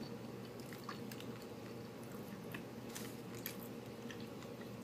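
Faint chewing with closed mouths as people eat cake: soft, scattered small mouth clicks.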